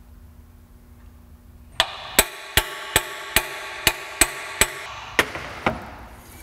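Ball-peen hammer striking a steel seal driver, about ten sharp ringing metal-on-metal blows at two to three a second, beginning about two seconds in: an axle seal being driven into a Ford 8.8 axle tube bore.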